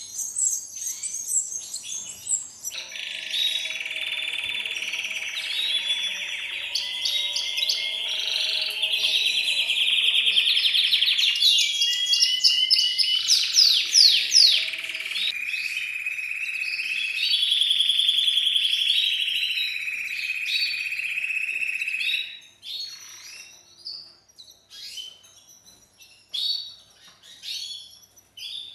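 Canaries: a few chirps, then a long stretch of loud, continuous trilling canary song with abrupt changes of phrase. The song cuts off suddenly, leaving scattered short chirps from the cage birds.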